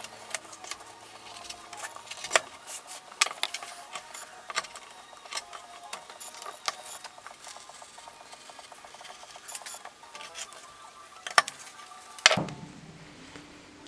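A knife cutting through leather on a wooden bench, giving irregular sharp clicks and scrapes as the blade and leather knock against the wood. Two louder knocks come near the end.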